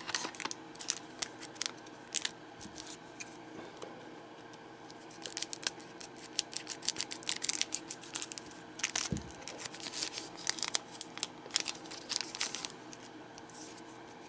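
Scissors snipping open a foil trading-card booster pack, with the foil wrapper crinkling and rustling and the cards being handled. There is a string of short clicks and crinkles, busiest in the second half, and a soft knock about nine seconds in.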